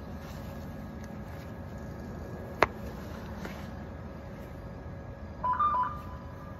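Steady background hum of an outdoor train platform, with one sharp click about two and a half seconds in and a brief run of electronic beeps in two alternating pitches near the end.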